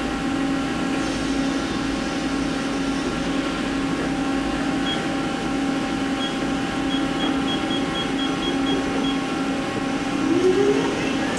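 Mori Seiki SL-403CMC CNC lathe's spindle drive running with the chuck turning, a steady hum. Near the end a rising whine as the spindle speeds up in high range.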